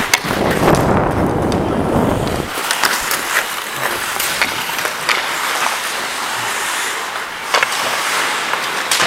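Ice skate blades scraping and hissing on the ice under a skating player, with a few sharp clicks. For the first two or so seconds a low rumble of wind on the microphone runs under it.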